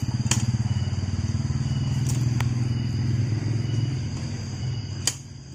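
An engine running steadily at low revs, fading away near the end, with a few sharp clicks from the cage being handled.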